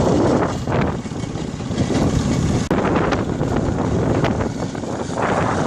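Motorbike engine running steadily while riding, with wind buffeting the microphone.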